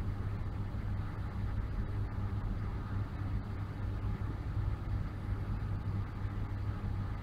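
Steady low mechanical hum of laboratory machinery, an even drone centred low in pitch, with no change through the stretch.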